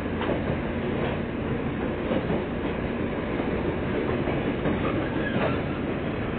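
Running noise of a 115-series electric train heard from inside the car: a steady rumble, with the wheels clicking over rail joints a few times.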